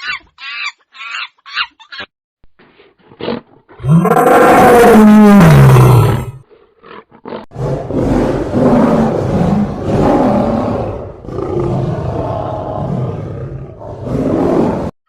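A few short chicken clucks, then a big cat roaring: one loud roar about four seconds in, falling in pitch, followed by a long run of rough, growling roars.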